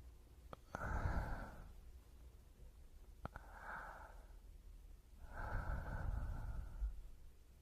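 Breathing close to a binaural microphone: three breaths a couple of seconds apart. The first two each start with a small lip click.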